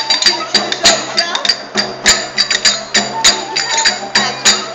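Folk dance music: a clarinet playing a melody over a large frame drum beaten by hand in a quick, even rhythm of about four sharp strokes a second.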